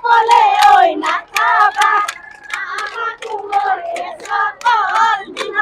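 High-pitched voices singing a Bihu song over sharp, evenly spaced percussive beats, about three a second.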